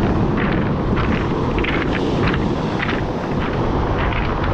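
Wind buffeting the microphone over the rush of surf, with footsteps crunching on rounded beach cobbles about two to three times a second.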